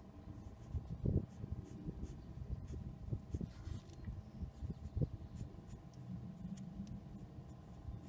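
Sharpie marker writing on the metal housing of a hydraulic pump: faint, scratchy strokes with a few light taps.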